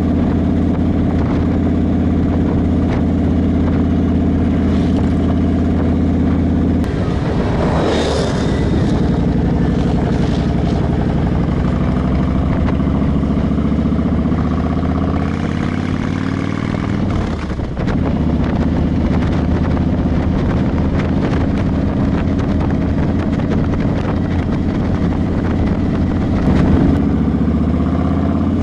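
Motorcycle engine running steadily under way, heard from the bike itself. Its note breaks and changes pitch twice, about seven and seventeen seconds in.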